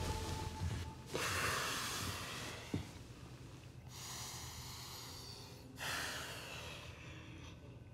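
A man breathing heavily in three long, noisy breaths, the first starting about a second in.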